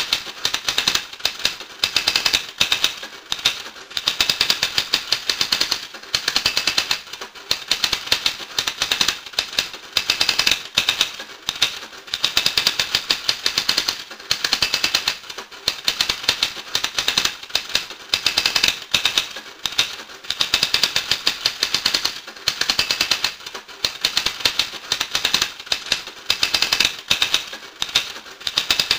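Rapid clattering clicks, many per second, coming in bursts of a second or two with short breaks between them.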